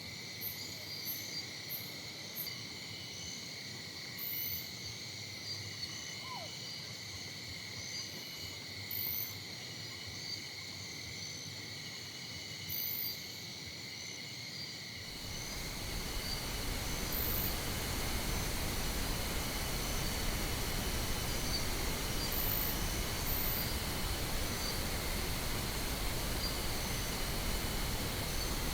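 A steady chorus of insects chirping in high trills. About halfway through, a steady pink-noise hiss fades in over it and becomes the loudest sound.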